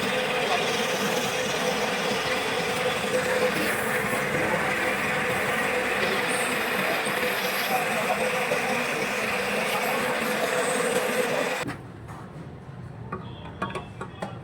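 A machine running steadily with a constant hum, cutting off abruptly near the end, after which a few light clicks are heard.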